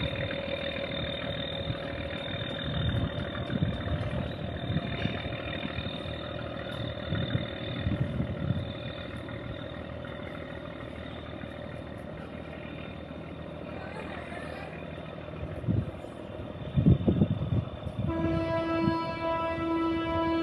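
A barge's diesel engine runs with a deep, uneven rumble that swells around 3 and 8 seconds in and surges loudest about 17 seconds in. About two seconds before the end, a steady horn tone sets in and holds.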